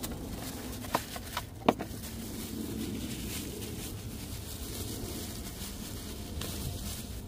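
Bubble wrap crinkling and rustling as a small part is unwrapped by hand, with a few sharp clicks between one and two seconds in, the last the loudest.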